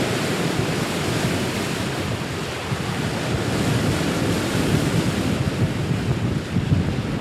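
Steady rush of wind and sea on open water, with wind buffeting the microphone in a gusty low rumble.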